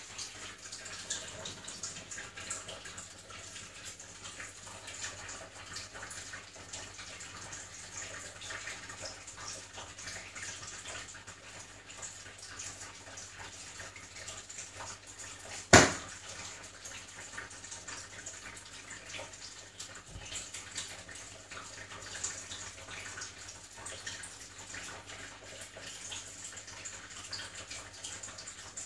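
A steady hiss with light crackles throughout, and one sharp knock about halfway through.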